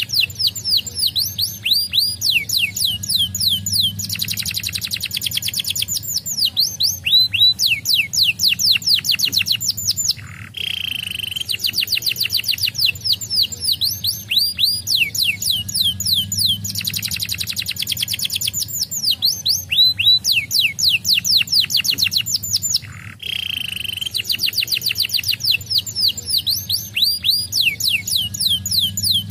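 Domestic canary singing a long, fast song of rapid downward-sweeping trills. Twice a short pause and a brief buzzy note break the song, which then starts over.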